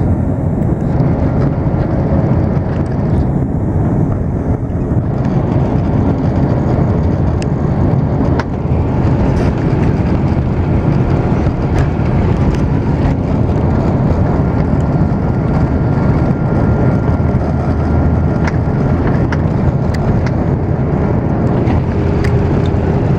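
Airbus A330 cabin noise during the takeoff roll: a steady, loud rumble from the engines and runway, with a few light clicks.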